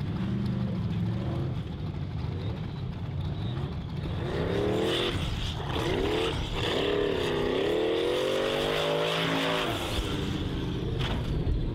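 Formula Offroad race buggy's engine revving hard under load on a steep dirt hill climb, its pitch repeatedly rising and falling with the throttle. It gets louder from about four seconds in.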